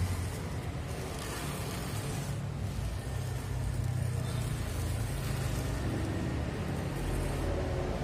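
Steady low rumble of a running engine, a little stronger in the second half.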